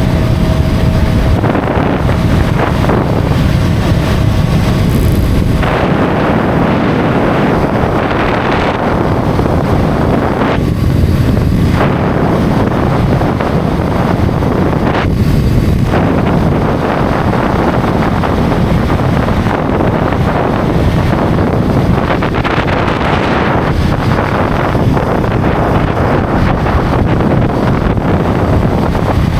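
Heavy wind noise buffeting the microphone over a motorcycle's engine and tyre-on-road noise at steady highway speed.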